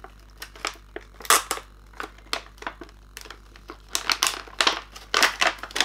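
Plastic action figures and their packaging being handled: a string of short clicks and crinkles, busiest from about four seconds in.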